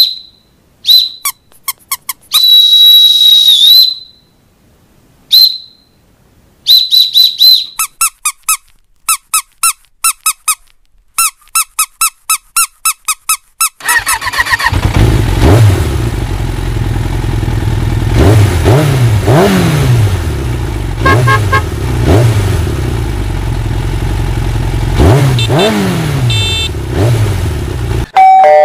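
A string of short, high-pitched squeaks and whistle tones in quick runs, one held for over a second. Then, from about halfway, a motor vehicle engine runs loudly with its revs rising and falling several times. A doorbell chime starts right at the end.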